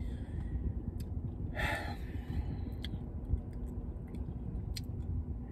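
Steady low rumble of a car cabin with the heater running, with a short sigh about one and a half seconds in and a few faint clicks.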